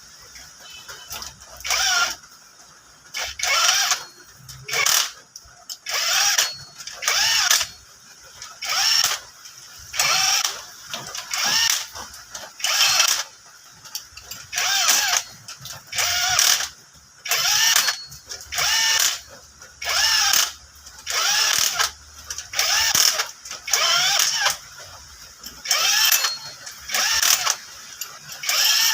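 Ratchet wrench worked back and forth in steady strokes: a burst of rapid clicking about every one and a half seconds, repeated throughout.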